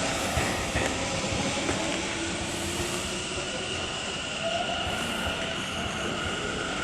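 Electric commuter train running on rails: a steady rumble of wheels and motors, with a thin high whine or squeal that holds from about two and a half seconds in.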